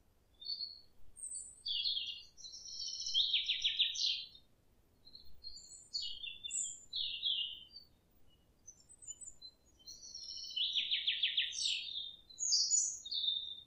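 A songbird singing in clear, high phrases. A longer phrase ending in a fast trill comes about two seconds in and again about ten seconds in, with shorter chirps in between.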